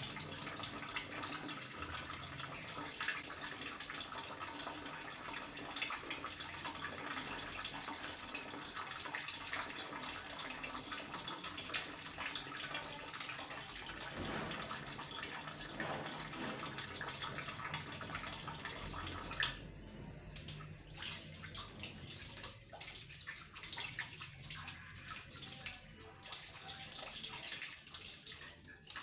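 Water running steadily from the tap of a plastic bucket into a plastic basin as hands are washed under it. About twenty seconds in, the steady flow cuts off suddenly and quieter, uneven splashing follows.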